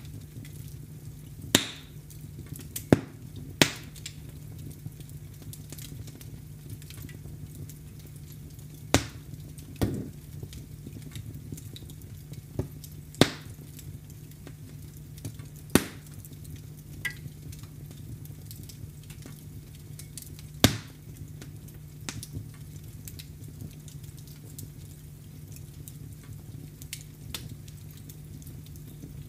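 Wood fire crackling in a fireplace: about eight sharp pops at irregular gaps of one to five seconds, with fainter ticks between, over a steady low hum.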